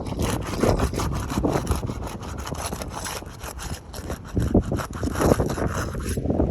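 Flat bar scraping and prying under asphalt shingles to work loose overdriven roofing nails, with many short rasping scrapes. Wind buffets the microphone with a low rumble.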